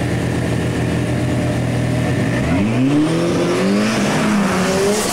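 Drag-race cars, a Talon and a Toyota Supra, holding steady revs on the line, then launching about two and a half seconds in. Engine pitch climbs in rising sweeps and drops back at a gear change before climbing again.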